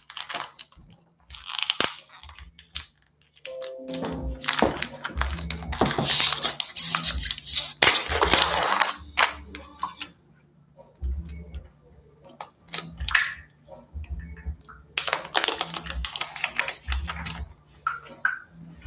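Foil wrapper of a Magic: The Gathering booster pack being crinkled and torn open by hand, crackling in bursts. It is loudest from about four to nine seconds in and again a few seconds before the end.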